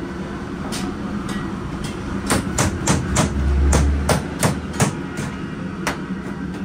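A quick series of sharp chopping strikes, about fifteen in all and fastest through the middle at around three or four a second, over a steady hum and a low rumble.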